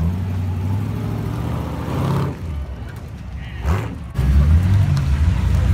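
Hot rod coupe's engine running at low revs as it pulls away, with a short rev rising in pitch about three and a half seconds in. Engine noise grows markedly louder from about four seconds in.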